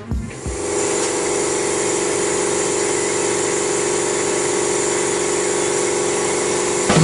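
Steady hiss of compressed air fed into a cylinder of a BMC B-series engine during a leak-down test, with a steady hum beneath it. It starts and stops abruptly.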